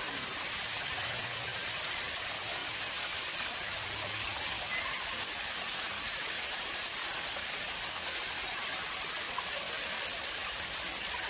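Water flowing and splashing steadily into an artificial pond: an even, unbroken hiss.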